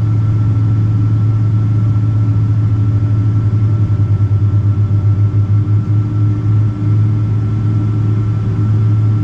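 Engine noise of a Boeing 777-200ER's twin Pratt & Whitney PW4000 turbofans, heard inside the cabin: a steady, loud low drone with a thin steady whine above it. For a few seconds in the middle the drone pulses in a regular beat.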